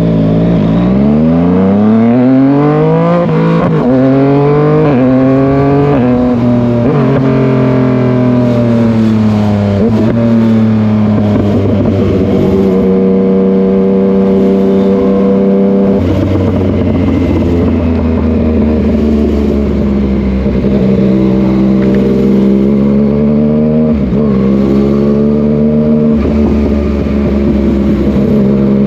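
Yamaha MT-09 three-cylinder engine and exhaust accelerating: the pitch climbs in steps over the first several seconds, breaking at each gear change, then settles into a steady cruise with small rises and falls in revs.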